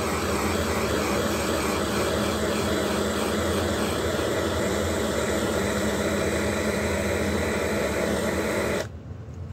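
Handheld gas soldering torch burning with a steady hiss, its blue flame heating a sterling silver pendant to solder the jump ring, with a wavering whistle over it for the first few seconds. The flame is shut off abruptly near the end.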